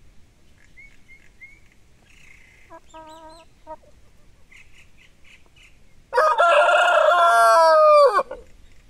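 Rooster crowing once: one loud call of about two seconds, starting about six seconds in. Before it, a short, softer call about three seconds in.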